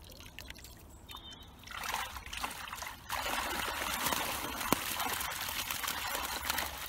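Water pouring and splashing off the mesh of a fishing keepnet as it is lifted out of the canal. It starts about two seconds in and becomes a steady, louder rush of draining water about three seconds in.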